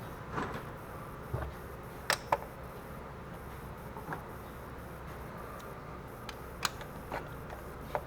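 Scattered light metallic clicks and knocks from a spark plug socket and hand tools being handled and fitted, over a low steady hum. The clearest are two close knocks about two seconds in.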